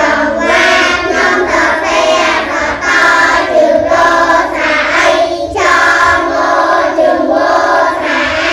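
A class of young children's voices chanting together in unison in a sing-song chorus, with long drawn-out syllables and no break.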